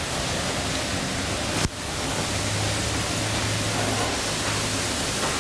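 Steady rushing hiss of wind in a pipe organ chamber. There is a brief dip at about a second and a half in, then a low steady hum that carries on to the end.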